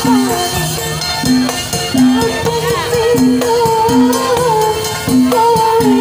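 Live Javanese kuda lumping street-band music: a kendang hand drum, hanging gongs and an electric keyboard played on the move, with a wavering melody line over repeating low notes on a steady beat.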